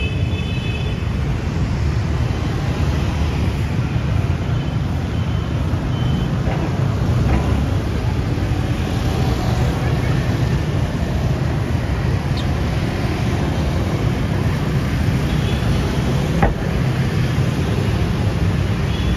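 Steady street traffic noise, a low rumble of passing vehicles, with one sharp click about sixteen seconds in.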